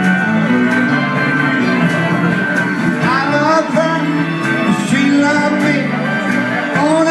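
Live band playing a song on electric guitars and keyboard.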